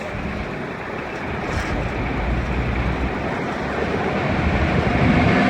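Approaching train: a steady rumble that grows gradually louder.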